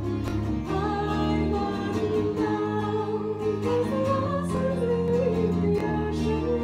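A woman singing a folk melody with held, wavering notes, over long bowed cello notes and a strummed Irish bouzouki.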